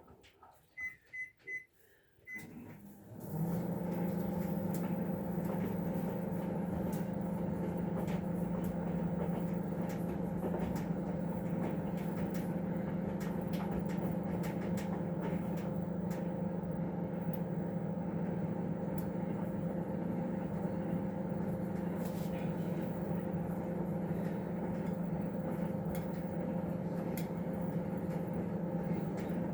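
A few short beeps from an appliance's control panel, then, about three seconds in, a steady motor hum starts up and runs on evenly: the Hotpoint Core washing machine starting its cycle.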